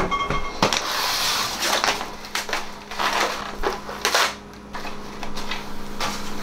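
Plastic shrink-wrap being torn and crumpled off a Cup Noodles cup: a quick run of crackling rustles that eases off about four and a half seconds in.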